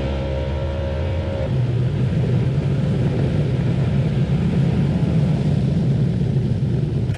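An off-road vehicle's engine running loud and steady, turning rougher and noisier about a second and a half in as it drives on.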